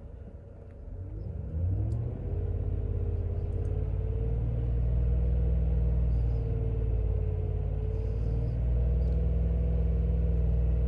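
2010 Ram 1500's 5.7 Hemi V8 revved up from idle about a second in, then held steadily at about 2,500 RPM, heard from inside the cab. It runs smoothly, without the rough running and random misfire it used to develop at this engine speed.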